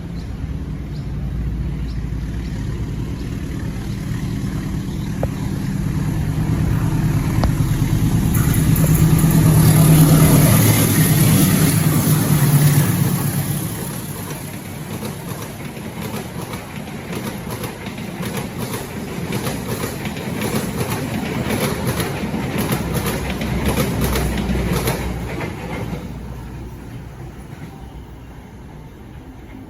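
Diesel-electric locomotive passing close by, its engine running loudest about ten seconds in, followed by the train's cars rolling past with a rapid clatter of wheels over rail joints that fades away near the end.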